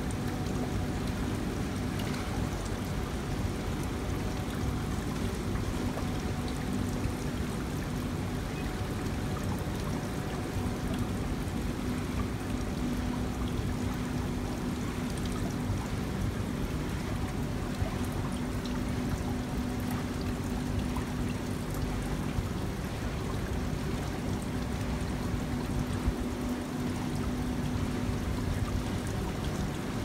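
Water running steadily down a tiled water-feature wall, with a faint steady low hum underneath.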